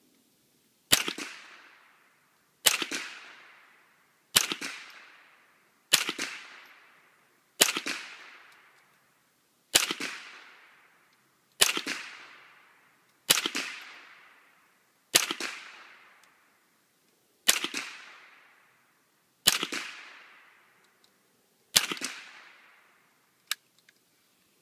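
Twelve single .22 LR shots fired semi-automatically from an AR-style rifle with a Core 15 .22 LR upper on a Bushmaster lower, spaced about one and a half to two seconds apart. Each shot ends in a short fading echo. The rifle keeps cycling without a stoppage.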